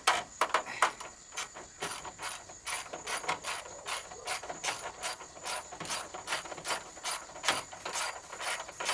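Hand socket ratchet on an extension clicking in quick, even strokes, about three a second, as bolts are tightened down.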